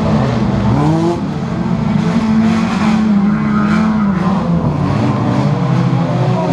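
Dirt-track race car engines revving hard, their pitch rising and falling again and again through gear changes and corners, with more than one engine heard at once.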